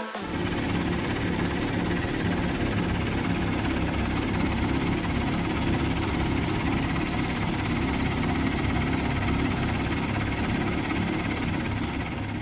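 Diesel engines of a Bizon Z056 combine harvester and an Ursus 912 tractor running steadily side by side while the combine unloads grain into the tractor's trailer.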